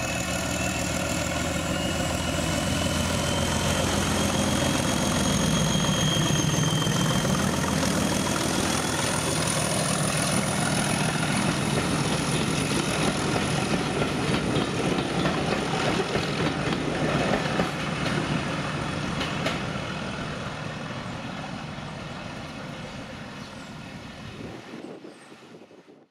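Class 31 diesel locomotive running under power, its English Electric V12 engine loud and steady with a faint high whistle gliding above it. The sound builds over the first few seconds and then fades slowly as the locomotive moves away.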